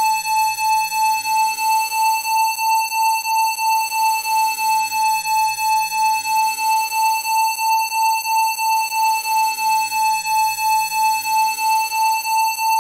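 Electronic 880 Hz tone held steady, its loudness pulsing evenly about three times a second.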